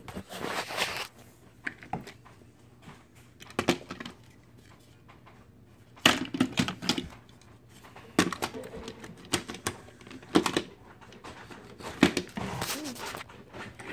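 Irregular clicks, knocks and rustling from plastic toy trains and track being handled, with some sharper clacks about 6, 8 and 12 seconds in.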